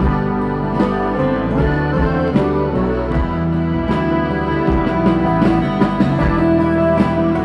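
Live acoustic rock band playing an instrumental passage without vocals, with a strummed twelve-string acoustic guitar in a steady rhythm and sustained accompanying notes.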